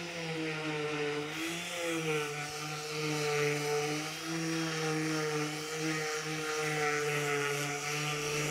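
Electric random orbital sander running steadily on a wooden board, smoothing a freshly carved piece. Its motor hum wavers slightly in pitch as it is pressed into the wood, over a hiss from the sanding pad.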